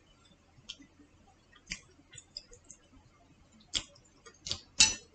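Close-up eating sounds: scattered soft clicks and wet smacks of chewing and chopsticks, with a few louder ones in the last second and a half.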